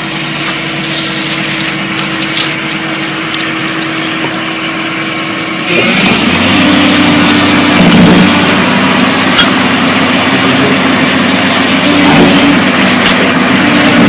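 Hyundai 210LC-7 crawler excavator's diesel engine running steadily, then about six seconds in it jumps louder and works harder while the machine holds itself up on its boom in a wheelie.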